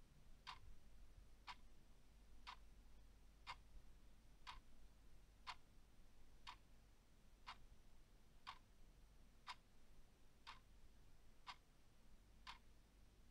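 Faint clock ticking steadily, one tick each second.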